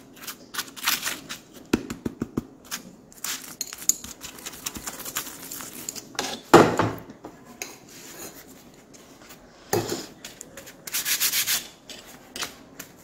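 Steel spoon spreading ghee over a roti on a plate, rubbing and scraping across the flatbread in short irregular strokes, some louder than others.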